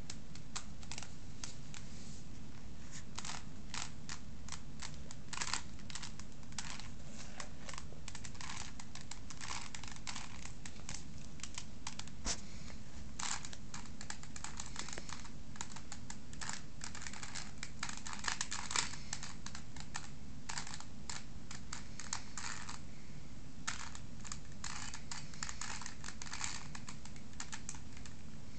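Rubik's cube being turned fast: the plastic layers clack in quick, irregular runs of clicks, over a low steady hum.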